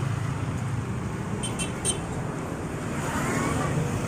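Steady low rumble of a running road vehicle, with three short high clicks about halfway through.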